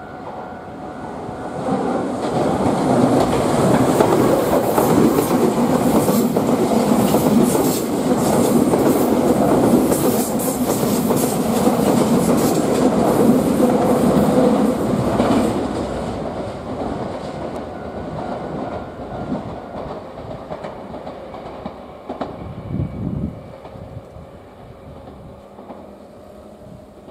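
Nankai 6000 series electric train passing close by, its wheels clacking rhythmically over rail joints, growing loud about two seconds in and fading gradually from about halfway as it runs away.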